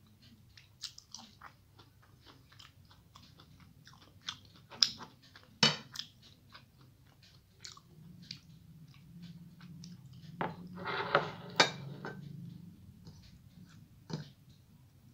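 Close-up chewing and crunching of crispy fried okra (bhindi bhaja), with wet mouth clicks. A burst of louder clicks comes around eleven seconds in.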